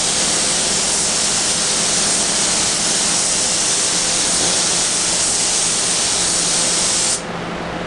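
Gravity-feed compressed-air spray gun spraying a first coat of white paint: a steady hiss of air and atomised paint that cuts off sharply about seven seconds in. A faint low hum runs underneath.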